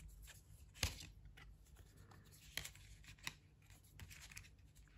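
Faint paper rustling as a plastic bank card is slid out of its paper card holder, with a few light clicks, the clearest about a second in.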